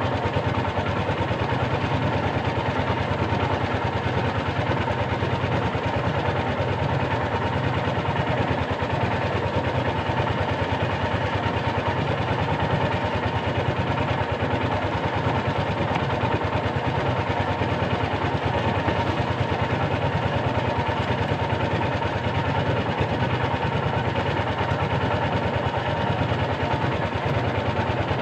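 Small wooden fishing boat's engine running steadily at low trolling speed, an even unchanging hum.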